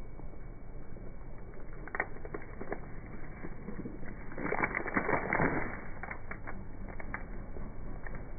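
Car tyre rolling over onions on asphalt: the papery skins and bulbs crackle and crunch as they split under the weight. The crushing is densest and loudest from about four to six seconds in, with scattered single snaps before and after.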